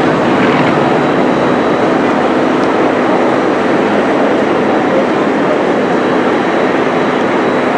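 Propeller engines of a formation of piston aerobatic planes flying over, a loud, steady drone.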